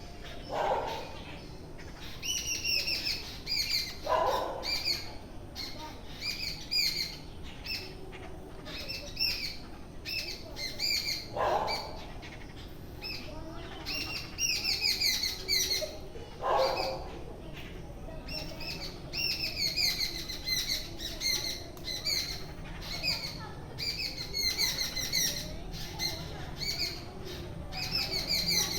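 Several small birds chirping in quick runs of short, high, falling notes. A lower, downward-sweeping call cuts in four times, about a second in, at about four seconds, and near twelve and seventeen seconds.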